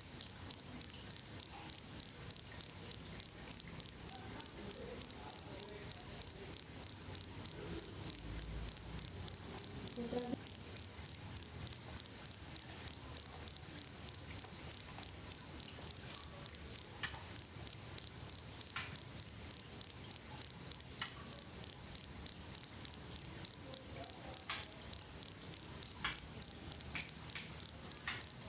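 Cricket chirping: a high-pitched chirp repeated in even, rapid pulses, about three a second.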